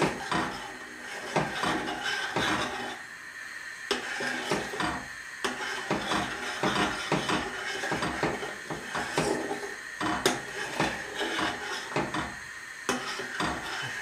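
A spoon stirring milk in a stainless steel saucepan, with frequent irregular clinks and scrapes against the sides and bottom of the pot.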